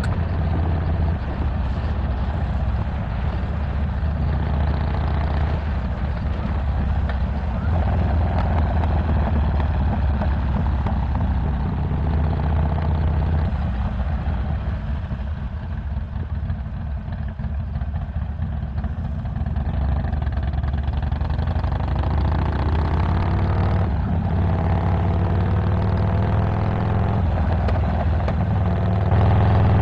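Harley-Davidson Iron 1200 Sportster's air-cooled V-twin engine under way through a 2-into-1 Cobra El Diablo exhaust with a Stage 1 tune. It runs steadily, eases off and drops a little in level around the middle, then pulls harder twice in the second half with its pitch rising.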